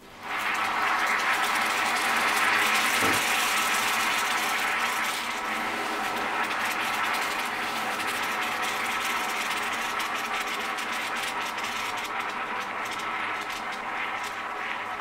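White powder spooned into water in a glass bowl, fizzing as it foams up: a dense crackling hiss that starts at once, is loudest in the first few seconds and slowly fades.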